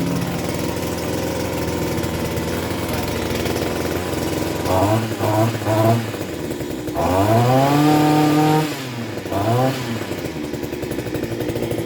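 Mitox 28MT Select multi tool's 25.4 cc two-stroke engine idling just after a first-try start with the choke off. It is blipped three times in quick succession about five seconds in, then revved up and held for about a second and a half before dropping back, then blipped once more and left to idle.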